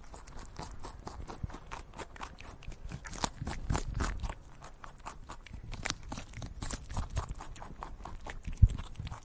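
Capybaras chewing fresh leafy branches: a continuous run of quick, irregular crunches, with a single low thump near the end.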